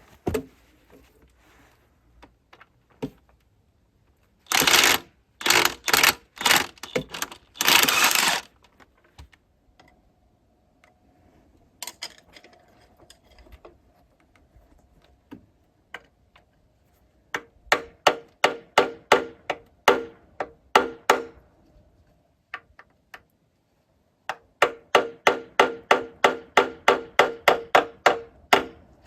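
Hammer blows on metal, each with a short ring, in two quick runs of about three blows a second. Before them come four short, loud, noisy bursts.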